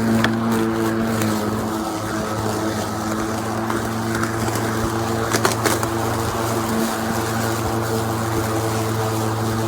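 Greenworks 80V cordless lawn mower's electric motor and blade running at a steady speed, a constant hum, with a few sharp clicks about five and a half seconds in.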